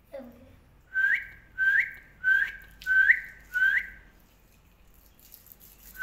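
Alexandrine parakeet whistling: five short, quickly rising whistles about half a second apart, then one more near the end.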